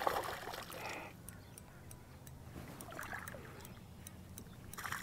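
Faint splashing of a hooked white crappie thrashing at the water's surface as it is reeled up to the boat, with a few small ticks.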